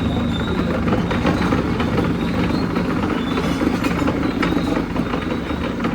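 Milling machine running under cut: a steady low mechanical rumble with irregular metallic clicks and rattles.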